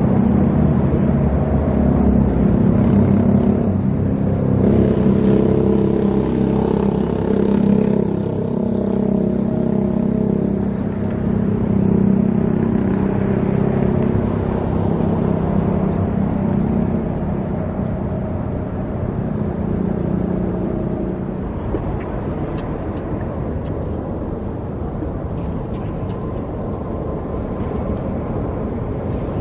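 Steady traffic on a busy boulevard: car engines and tyre noise passing close by, with engine tones rising and falling as vehicles go past.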